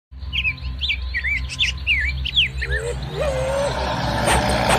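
Birds chirping in quick rising and falling calls over the low, steady rumble of an idling truck engine; the chirps fade after about three seconds as the engine noise grows louder.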